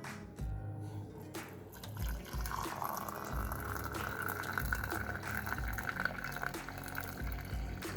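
Hot herbal decoction (kashayam) poured from the pot through a strainer into a vessel, a steady splashing stream of liquid filling it from about two and a half seconds in. Low thuds are heard throughout.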